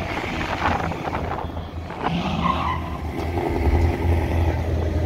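V8 Ford Mustang exhausts as Shelby Mustangs drive slowly away at low speed. About three and a half seconds in, a deep, steady low engine note grows louder as the second car rolls close past.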